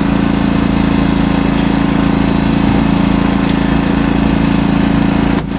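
Fishing boat's engine running steadily, a loud even drone, with a brief break near the end.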